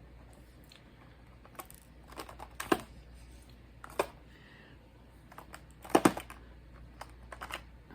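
A few light, sharp clicks and taps, irregularly spaced and the loudest about six seconds in, over a faint steady low hum.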